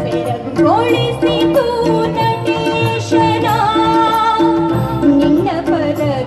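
Live Indian devotional music from a stage ensemble: a melody of long, sliding held notes, sung or played, over a steady repeating drum beat.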